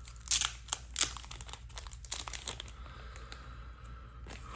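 Packaging crinkling and tearing as the next bundle of trading cards is unwrapped and handled, with two loud crackles about a third of a second and a second in, then softer rustling.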